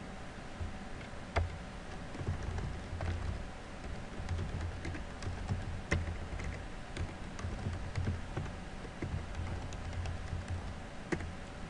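Typing on a computer keyboard, entering a username and password in irregular runs of key clicks, with a few sharper, louder clicks among them.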